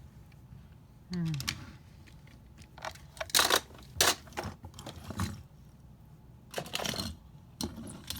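Irregular sharp clicks and clattering knocks, the loudest a few seconds in and again near the end.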